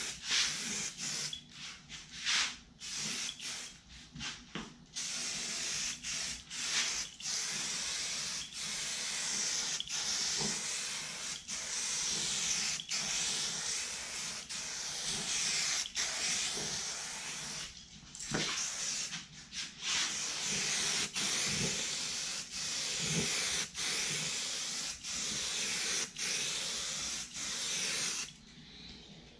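Aerosol spray paint can hissing as a coat of black paint goes on, in short bursts over the first few seconds and then in longer sprays with brief breaks between them.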